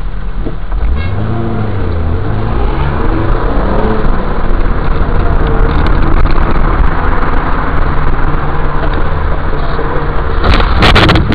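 Car engine and road noise heard from inside a moving car, the engine pitch rising and falling as it accelerates in the first few seconds. Near the end comes a loud, sudden crash, the sound of a road collision.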